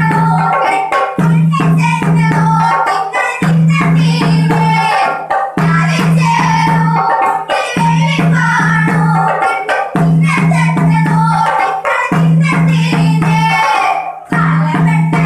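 Young students singing together into a microphone, accompanied by a chenda drum and a steady, even percussion beat. The song goes in repeating phrases of about two seconds, with a strong low tone under each phrase.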